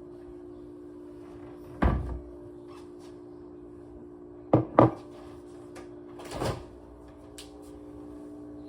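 Nespresso machine humming steadily as it brews a double espresso. Several sharp knocks sound over it: one about two seconds in, two in quick succession near the middle, and a softer one a little later.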